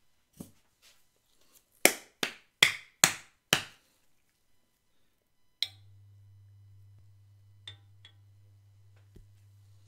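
Plastic squeeze bottle of chocolate sauce sputtering as it is squeezed: a few small clicks, then five sharp pops in quick succession, about two and a half a second, as air spurts out with the sauce. About halfway through comes a single click, and after it a faint low hum.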